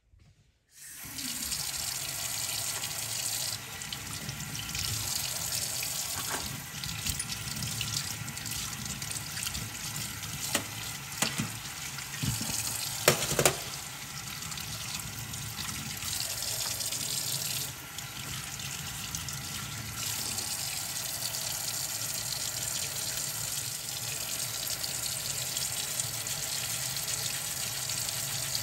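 Steady rushing of running liquid, starting abruptly just under a second in, with a few light clicks near the middle.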